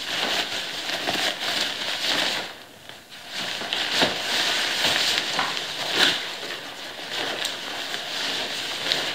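Bicycle rain cape rustling and crinkling as it is unfolded and pulled on over the head. It eases off briefly about three seconds in, with sharper crackles about four and six seconds in.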